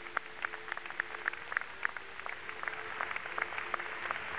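Quiet indoor arena ambience: a faint steady hum with many small, irregular clicks and ticks, several a second.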